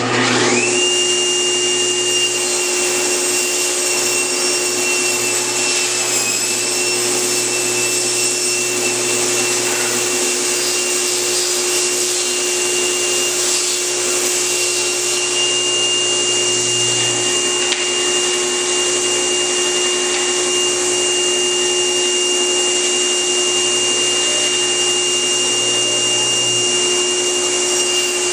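Table saw with a one-horsepower motor and a thin-kerf Micro-Kerf40 blade, switched on and spinning up to speed within about a second, then running steadily with a high whine while ripping thin strips of about 1¼-inch mahogany, a hard cut for so small a motor. The pitch dips slightly about six seconds in.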